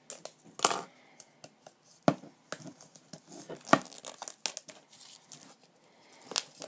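Thin plastic wrapping being slit with a key and torn off a Blu-ray steelbook case: irregular rips and crinkles with a few sharp clicks, the loudest a little under four seconds in.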